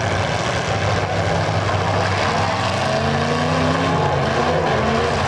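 Several demolition-derby cars' engines running and revving together in a loud, steady din, with one engine's pitch rising and falling about three seconds in.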